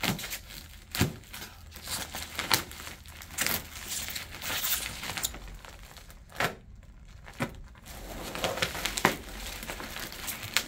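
Plastic wrapping crinkling and tearing as it is pulled at and handled, with irregular sharp crackles and a quieter spell of about a second just past the middle.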